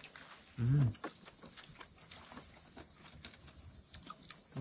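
Crickets chirring in a steady high-pitched chorus that pulses several times a second. A short hum of a voice comes about a second in, and there are small clicks.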